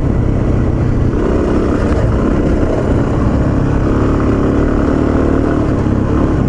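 A dual sport motorcycle's single-cylinder engine running steadily while riding along a sandy wash, its pitch rising and falling a little with the throttle.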